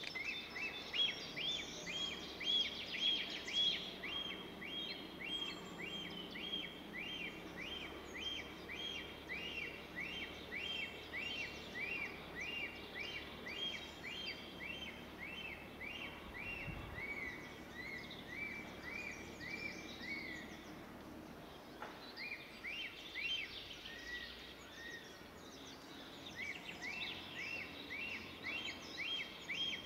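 A bird calling with a long run of evenly spaced chirping notes, about two a second, breaking off briefly near the end and then starting again, over faint outdoor background noise.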